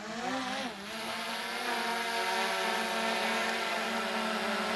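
DJI Mini 3 quadcopter drone's propellers buzzing as it lifts off and climbs. The pitch wavers for about the first second, then settles into a steady hum.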